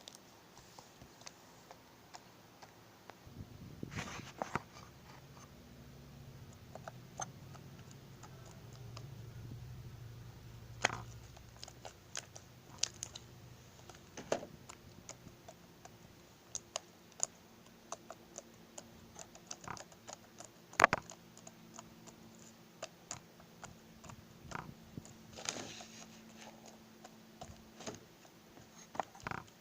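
Fluffy slime being squished and stretched by hand for ASMR, making scattered small clicks and pops, a few of them louder.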